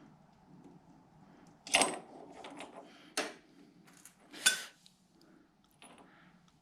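Metal tools or parts being handled: four sharp clinks and clanks, the loudest about two, three and four and a half seconds in.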